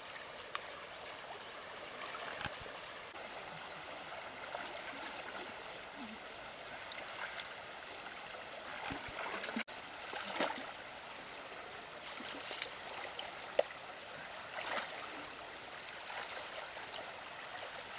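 Shallow river running steadily over riffles, with occasional short splashes of hands reaching into the water.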